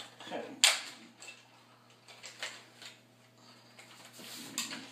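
A few sharp, irregular clicks and taps of small hard objects being handled, the loudest about half a second in, over a low steady hum.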